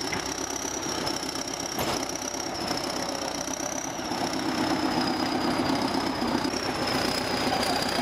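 Crawler bulldozer's diesel engine running under load as it pushes earth and stumps with its blade, with a steady high whine over the engine. The engine gets a little louder about halfway through.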